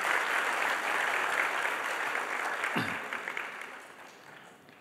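Congregation applauding, a dense steady clapping that dies away over the last second or so.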